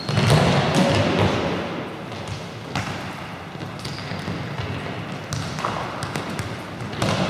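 Futsal balls thudding now and then off feet and the floor, over an echoing din of players' voices in a large sports hall; the din is loudest in the first second or so.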